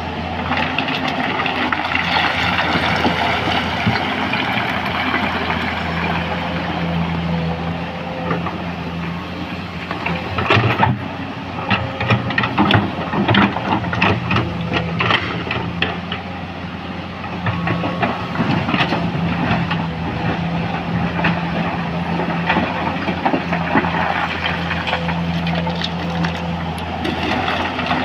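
Komatsu PC200 excavator's diesel engine running under changing load beside a working stone crusher. From about 11 to 16 s, rocks clatter and knock as stone is dumped and crushed.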